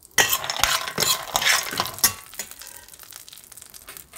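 Almonds and pistachios being stirred in a stainless-steel pan, frying in a little desi ghee: a dense clatter of nuts scraping and knocking on the metal for about two seconds, then softer scattered clicks.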